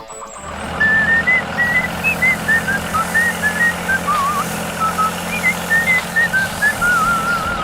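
A whistled tune wandering up and down in short phrases, some held notes wobbling, over a steady low engine-like hum.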